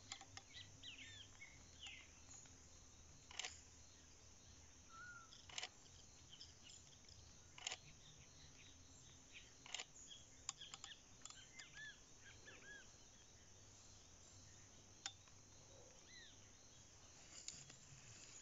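Nikon D5000 DSLR shutter clicking, single frames about every two seconds with a quicker few near the middle, while small birds chirp faintly.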